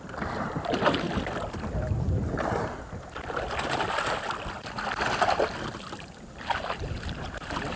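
A hooked fish thrashing and splashing at the water's surface beside a boat, in irregular bursts, with wind on the microphone.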